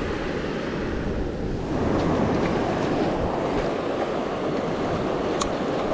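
Surf breaking and washing onto the beach, a steady rush that swells about two seconds in, with wind buffeting the microphone.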